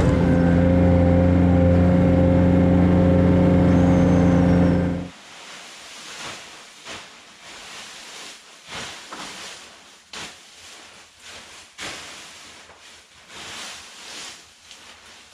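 Skid steer loader engine running steadily under the operator, heard from its cab, ending abruptly about five seconds in. After that, irregular rustling swishes of dry stalk bedding being tossed and kicked across a barn floor.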